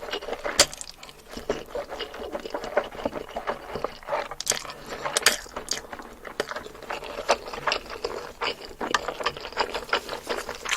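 Close-miked eating sounds: chewing and mouth noises, a dense run of irregular clicks and crunches.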